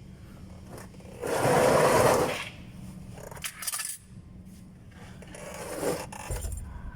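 A loud metallic scrape lasting about a second, about a second in, followed by a few lighter scrapes and clinks of metal parts being handled.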